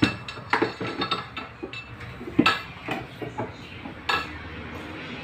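Irregular clinks and knocks of small hard metal objects being handled and set down, about a dozen over a few seconds, the loudest about two and a half seconds in.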